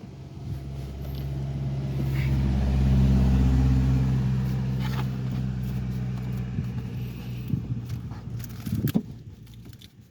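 A car engine running with a steady low hum that swells over the first few seconds and then fades away, with a few sharp clicks over it.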